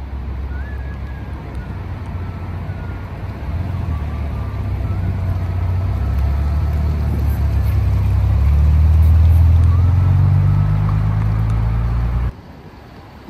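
Car engine running with a deep, low rumble that swells steadily louder over several seconds, eases a little, then cuts off abruptly near the end.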